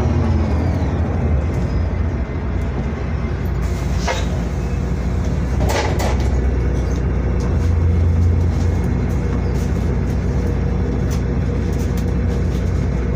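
Onboard a VDL DB250 double-decker bus: a falling drivetrain whine fades out in the first second as the bus slows, then the diesel engine idles steadily. Two short sharp noises about four and six seconds in fit the air-operated doors working at the stop.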